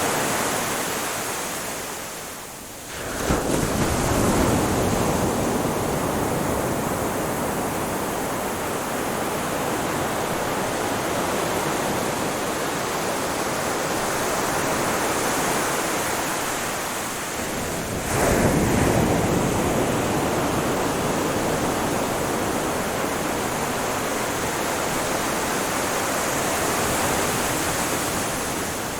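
Ocean waves breaking on a shore: a wave crashes in suddenly about 3 seconds in and another about 18 seconds in, with a steady rushing wash of surf between them.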